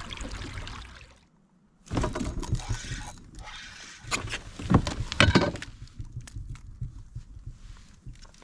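Water noise around a kayak with several sharp knocks and scrapes against the boat, the loudest a little after the middle. The sound drops out almost completely for under a second near the start.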